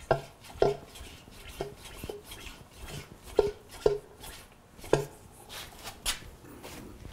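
Adjustable motorcycle fork leg being pumped by its top cap to empty the damping cartridge: about nine irregular metallic clunks as the cap and damper rod are stroked, a few of them sharply louder.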